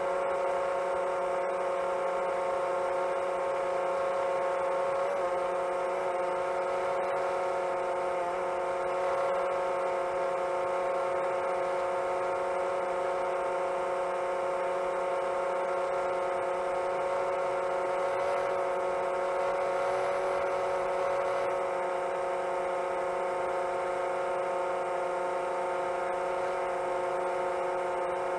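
Motors and propellers of a 7-inch long-range FPV quadcopter whining steadily in cruising flight, a stack of steady tones that wavers briefly around five and eight seconds in.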